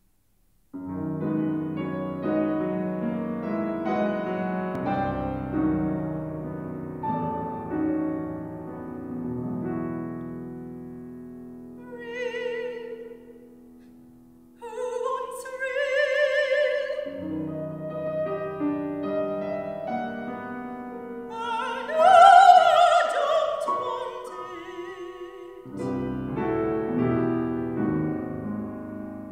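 Solo piano introduction on a Steinway grand, then a soprano voice entering about twelve seconds in and singing an opera aria with wide vibrato over the piano, climbing to a loud high note about two-thirds of the way through.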